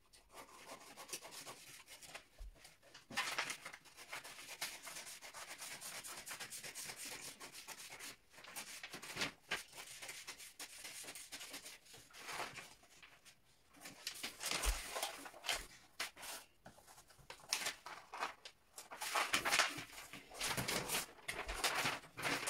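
Scissors cutting through sheets of pattern paper, with the paper rustling as it is handled. It comes in irregular stretches broken by short pauses.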